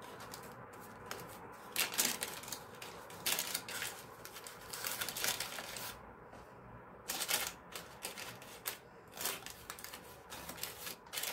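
Baking parchment rustling and crinkling, with light taps and scrapes in irregular bursts, as raw pastries are moved about on a paper-lined baking tray.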